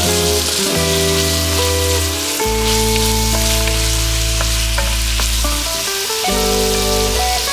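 Food frying and sizzling in a pan, a steady crackling hiss, under background music of held chords.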